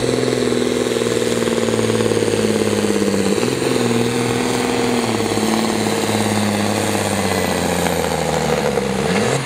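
Sport-class pulling tractor's diesel engine running hard at steady high revs under full load while it drags the weight sled. The pitch dips briefly about three and a half seconds in, and the revs fall away near the end as the pull finishes.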